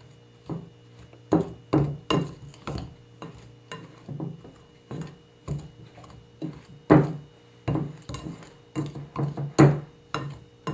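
Metal pastry blender chopping through flour and shortening, knocking and scraping against a glass mixing bowl in irregular strokes about one or two a second, over soft background music.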